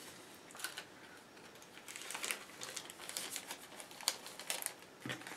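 Thin clear plastic bag crinkling as it is handled, in faint, irregular little crackles.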